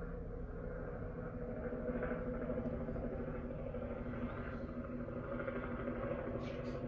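Steady low background rumble with a faint constant hum and no distinct events.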